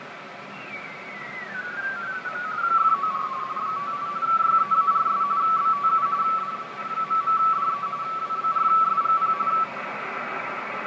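Icom IC-781 HF receiver tuned onto a digital data signal in the 20 m band: the tone slides down in pitch as the dial turns, then settles into a rapid two-tone frequency-shift-keyed warble over band hiss, of the kind RTTY sends. The signal cuts off near the end, leaving only the hiss.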